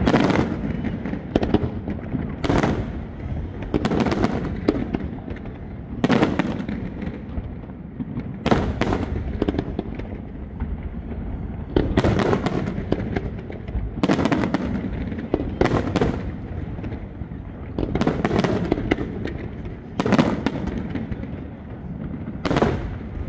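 Aerial fireworks display: shells bursting in a steady run, a loud bang every one to two seconds over a continuous low rumble.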